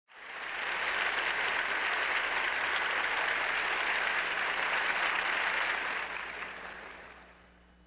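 Audience applauding, swelling up quickly at the start and dying away over the last two seconds.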